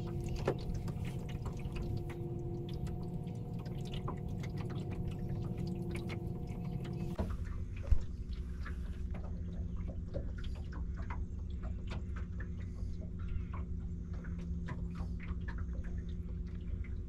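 A small boat's motor hums steadily at trolling speed, its tone thinning out about seven seconds in, while water laps and ticks against the hull. There is one sharp knock about eight seconds in.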